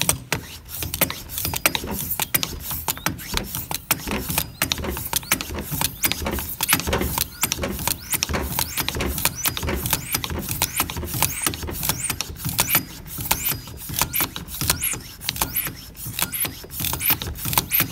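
Hand pump of a cooling-system pressure tester being worked over and over on a coolant expansion tank, a steady run of sharp clicking strokes. It is pressurizing the engine's cooling system toward 1.5 bar to find a coolant leak.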